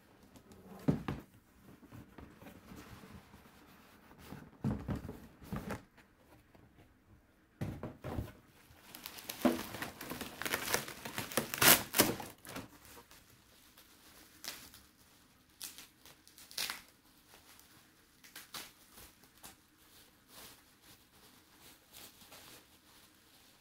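Packaging being unwrapped and handled, crinkling and tearing in irregular bursts with a few knocks. It is busiest and loudest around the middle.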